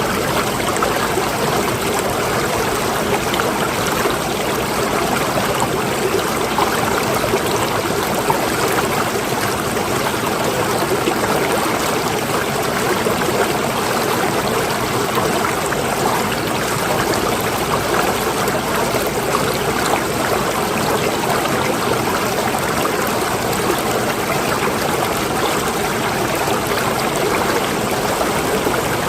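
Water running steadily in a stream, a constant rushing and trickling.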